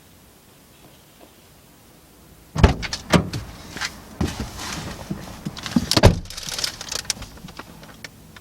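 Car door thuds shut twice, about two and a half seconds in and again around six seconds, among clicks and rustling as someone gets into the car.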